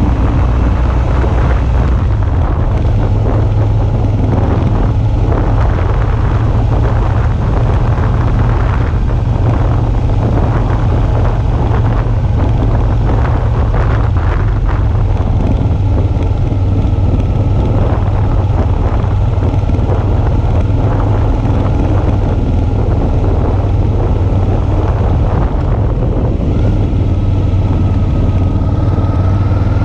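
Suzuki V-Strom 650's 645 cc V-twin engine running steadily while riding, with wind buffeting the camera microphone. A faint whine rises in pitch near the end.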